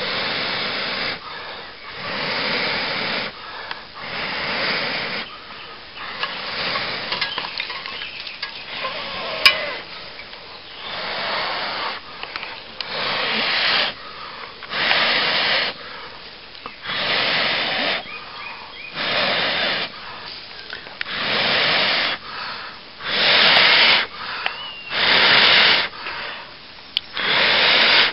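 Repeated long breaths blown onto a glowing charcoal ember in a tinder bundle to coax it into flame, about one every two seconds, the later puffs the strongest. A few small crackles from the tinder around the middle.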